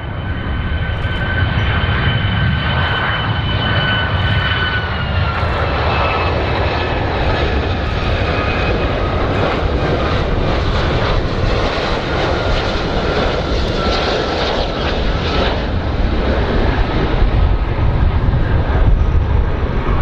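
Icelandair Boeing 757 twin-jet airliner on landing approach: a loud, steady jet engine rumble with a high engine whine on top. The whine steps down in pitch about five seconds in and fades out about three quarters of the way through.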